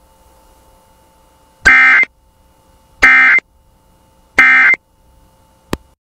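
Emergency Alert System end-of-message signal: three short, identical buzzing bursts of SAME digital data tones about 1.4 s apart, marking the end of the alert. A faint steady hum lies underneath, and a brief click comes near the end.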